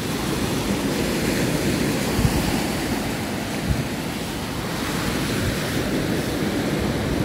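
Wind buffeting the microphone over a steady rush of sea surf, with a couple of brief low thumps.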